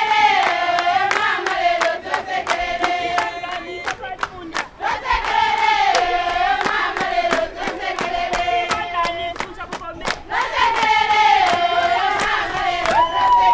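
A group of voices singing together in phrases a few seconds long, over steady rhythmic hand-clapping; a long held note comes in near the end.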